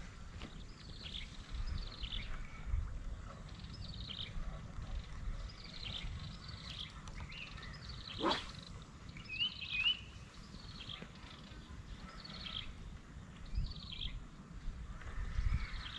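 Birds calling: a short, high, descending note repeated roughly once a second, often in pairs, with a low rumble underneath. There is a single quick swish about halfway through.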